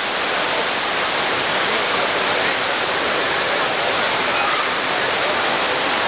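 Steady, loud rush of a tall waterfall plunging onto rocks, together with a stream running over boulders below it.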